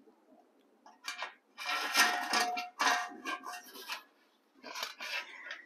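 Rustling and scraping of a filled cloth bag of wax comb being lowered into a large aluminum pot, in several bursts starting about a second in, with light clinks and faint ringing from the pot.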